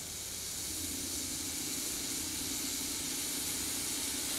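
Oxy-acetylene welding torch flame hissing steadily as it heats and welds thin sheet steel, growing slowly louder.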